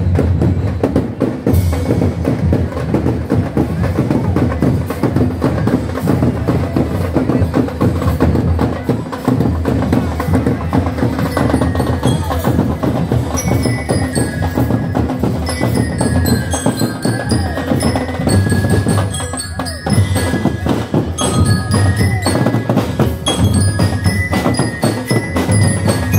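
A street drum band playing: many drums beating a dense, fast, steady rhythm, with metal-bar mallet instruments adding high ringing notes from about halfway in.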